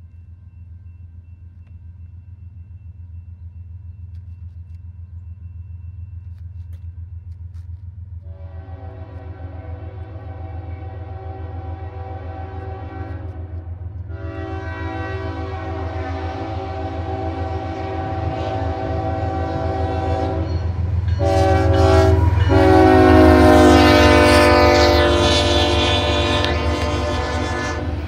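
CSX freight train's diesel locomotive approaching and sounding its chord air horn in a long, long, short, long pattern, the grade-crossing signal. The last long blast is the loudest and drops in pitch as the engine passes. Under the horn a low engine rumble grows steadily louder, and the freight cars start rolling by near the end.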